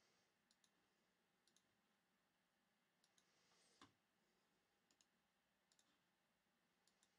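Near silence, with a few faint scattered clicks and one slightly louder click a little under four seconds in.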